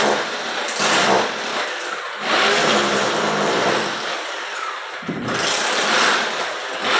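Corded electric drill boring into the wall through an air conditioner's metal mounting plate, drilling the fixing holes. It runs in spurts, easing off briefly a little after two seconds and again from about four to five seconds in before picking up again.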